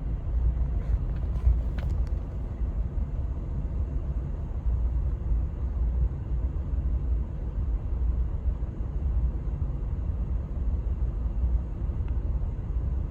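1999 Lexus RX 300's V6 idling roughly, heard from inside the cabin with the AC running: a steady low rumble that wavers unevenly in loudness. It is the sign of a misfire in cylinder 6, which the owner blames on a failing ignition coil.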